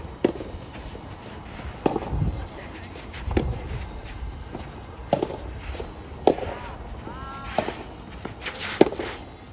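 Soft tennis rally: a soft rubber ball struck back and forth by rackets, with about seven sharp pops about every one and a half seconds. A brief rising squeak comes about seven seconds in.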